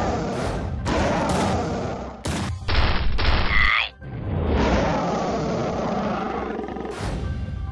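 Action sound effects over music: a rapid series of booms and crashes in the first couple of seconds, a brief rising tone, then a long rumbling noise that ends in another hit.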